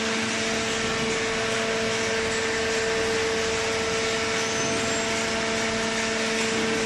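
Automatic-tie cardboard baler running: a steady machine hum with a constant two-note drone over an even mechanical noise.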